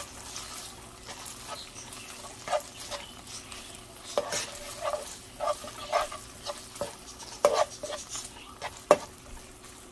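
Marinated chicken pieces sizzling in oil in a stone-coated non-stick frying pan while a slotted spatula stirs them, with irregular scrapes and taps of the spatula against the pan, two sharper ones near the end.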